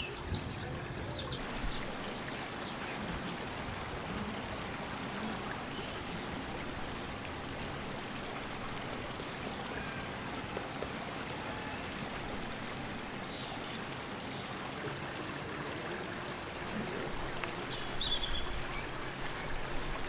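Steady outdoor background noise, an even hiss, with a few faint high chirps; it gets slightly louder near the end.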